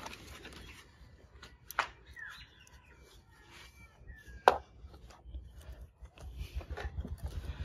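Quiet handling noise with two sharp knocks, one about two seconds in and one near the middle, as plastic toys are picked up and set down.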